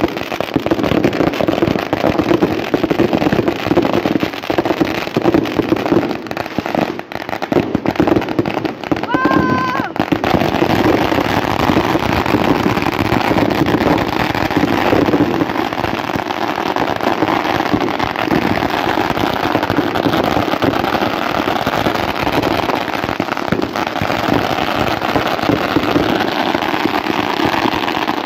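Ground fireworks going off continuously: fountains hissing and crackling with dense rapid pops and bangs. A brief whistling tone sounds about nine seconds in.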